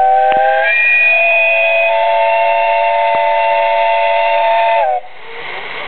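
Steam whistle of the JNR Class 8620 locomotive hauling the SL Aso BOY, blowing one long blast of several tones sounding together. The pitch steps up once near the start, then sags slightly as the whistle cuts off about five seconds in, leaving a quieter steam hiss.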